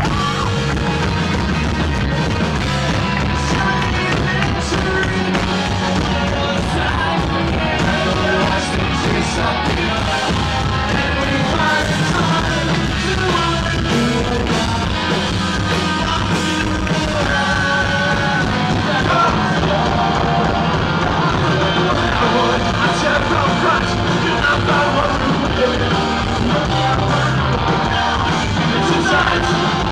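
A rock band playing live: a drum kit and the rest of the band, with a singer singing over them into a microphone.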